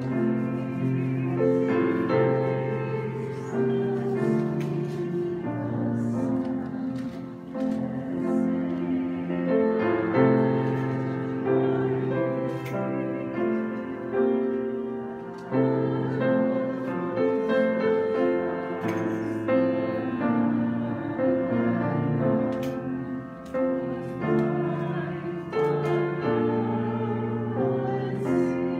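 Grand piano played slowly, one sustained chord after another, each held for a second or two before the next.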